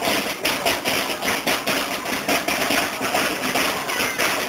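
Marching band drums of a school banda de guerra beating a steady march cadence, about three strokes a second.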